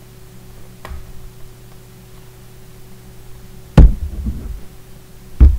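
Handling knocks as a laptop is opened: a faint click about a second in, then two loud thumps about a second and a half apart, over a steady low hum.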